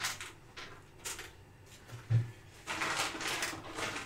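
Kitchen food-preparation handling noises: a few short rustles of packaging, a dull thump about two seconds in, then a longer stretch of rustling.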